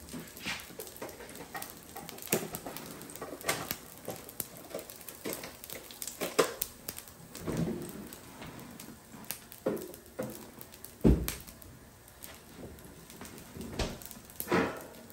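A spatula scraping and clacking on the plate of a Blackstone 22-inch E-Series electric griddle as rice is stirred and tossed: irregular sharp taps and short scrapes, several in each second.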